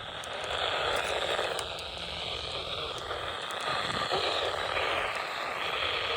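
Radio static: a steady hiss from a receiver on a weak or empty channel, cut off sharply above the voice band, with a faint wavering in it.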